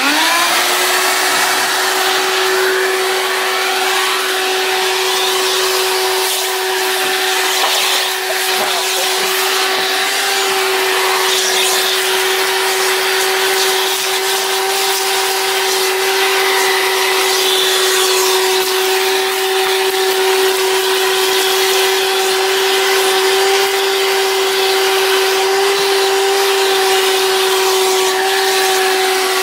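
Shop vac (canister wet/dry vacuum) switching on and spinning up within the first moment, then running at a steady whine over a rush of air as its hose nozzle sucks debris off truck floor carpet.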